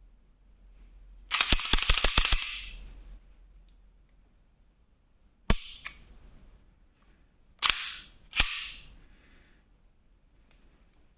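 Metallic clacks and clicks from the Smith & Wesson M&P9 M2.0 Competitor pistol's action being worked by hand. A quick rattling run of clacks comes about a second and a half in, then one sharp click, then two more sharp clicks less than a second apart near the end.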